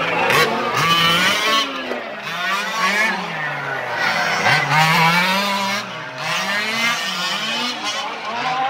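Several 1:5-scale RC race cars' small two-stroke petrol engines buzzing, overlapping and rising and falling in pitch as they rev and ease off through the corners. A long rising then falling pass about four to five seconds in as two cars go by close.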